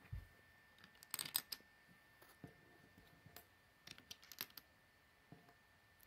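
Faint clicks and taps of small plastic Lego pieces being picked up and set into place. A cluster of clicks comes about a second in, and a few more come around four seconds.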